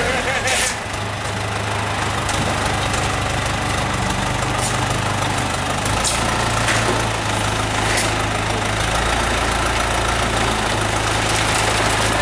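Case 580 backhoe engine running steadily, with a few sharp knocks.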